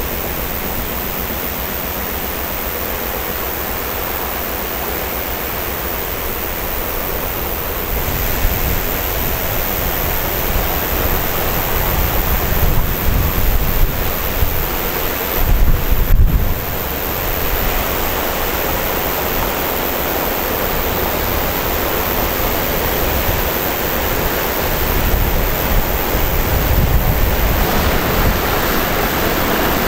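Wind buffeting the microphone over a steady rushing outdoor noise. The gusts grow stronger about a third of the way in, peak briefly around the middle, and pick up again near the end.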